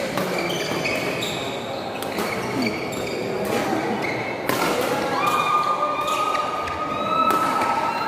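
Badminton rally in a large hall: sharp racket strikes on the shuttlecock about once a second, with players' footfalls on the court over a murmur of spectators. A sustained high tone comes in about five seconds in.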